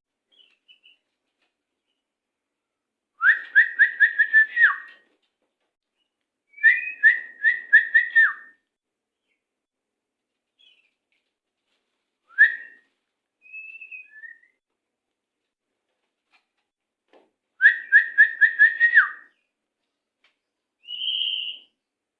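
White-rumped shama (murai batu) singing in the fast, stuttering 'macet' style. Three loud phrases of rapid repeated whistled notes, about five or six a second, come with pauses between them, along with a few softer single calls.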